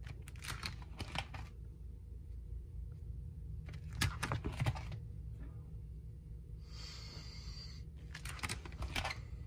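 Clear plastic binder sleeve pages being turned by hand: three short bursts of crinkling and rustling, with a smoother sliding hiss of about a second between the last two, over a low steady hum.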